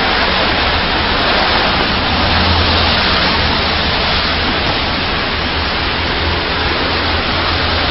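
Steady, loud hiss-like noise with a low hum beneath it, with no clear separate events.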